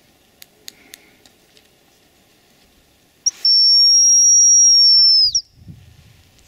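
Hazel grouse decoy call blown once: a single long, high, steady whistle of about two seconds that bends down in pitch at the end, imitating a hazel grouse to lure one in.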